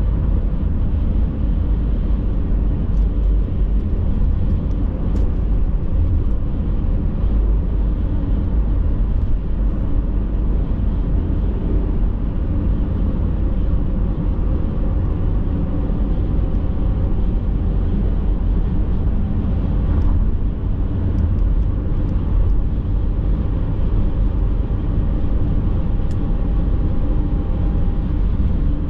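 Steady road noise of a car cruising at highway speed, heard from inside the cabin: a low, even rumble of tyres and wind. A faint steady whine joins it about halfway through.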